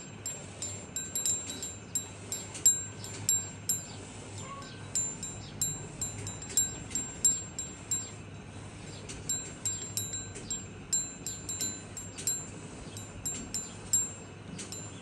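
Small metal bells tinkling irregularly, a few bright strikes a second, each briefly ringing at the same high pitches.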